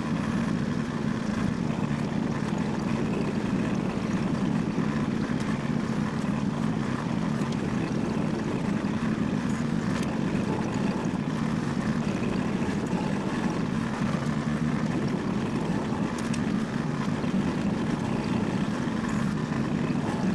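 An engine running steadily at an even speed, a constant low drone without revving.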